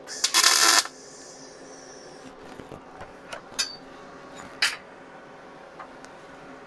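A welding arc crackles for well under a second near the start as a tack weld is laid on a steel chair leg. Then there is a faint steady hum with two short clicks.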